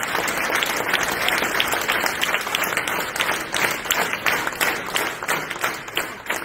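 Audience applauding, a dense run of clapping that thins out and grows quieter near the end.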